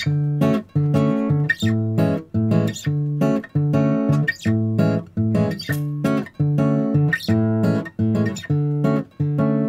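Background music on acoustic guitar, picked in a steady, even rhythm.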